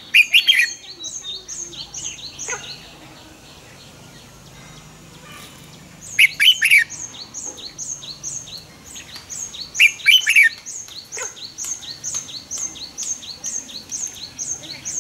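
Red-whiskered bulbul singing short, loud, warbling phrases three times: at the start, about six seconds in and about ten seconds in. Between the phrases runs a steady series of short high chirps, about three a second.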